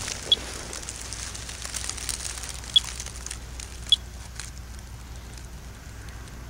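Monitor 4 Geiger counter chirping three times, a few seconds apart. Each short, identical high beep marks one detected radiation count as the counter is held over a rotten log.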